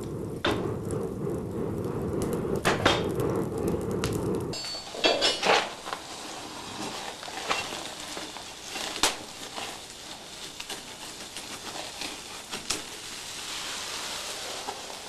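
Charcoal forge fire with a steady low roar that cuts off abruptly about four and a half seconds in. Scattered sharp clinks and knocks of tongs and steel at the forge follow, with three louder knocks just after the cut. Later comes crackling as the steel block throws sparks near welding heat.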